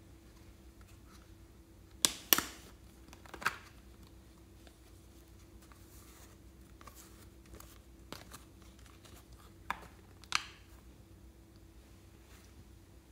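Sharp plastic clicks and snaps of a hard Baymax-shaped plastic case being handled, opened and shut: a pair about two seconds in, one more a second later, and another pair about ten seconds in. Between them, faint soft rustling as fluffy clay is pulled apart and pressed down.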